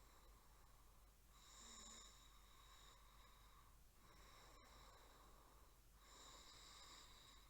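Faint snoring from a sleeping person: three slow breath sounds, each about a second and a half long, roughly two seconds apart.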